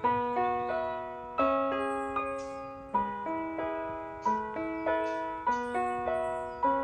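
Background piano music: a gentle melody of single notes and chords, each struck and left to ring out.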